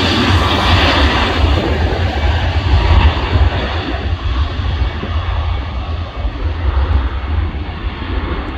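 Jet engines of an easyJet Airbus A320-family airliner at takeoff power on the takeoff roll. It is a loud, steady jet noise with a deep rumble underneath, and its high hiss fades from about three seconds in as the aircraft speeds away down the runway.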